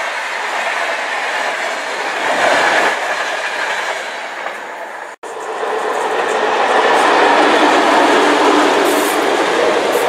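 Passenger coaches rolling past with steady wheel-and-rail noise. About five seconds in the sound cuts off abruptly and is replaced by a pair of class 753 diesel locomotives running light, their engines growing louder as they approach.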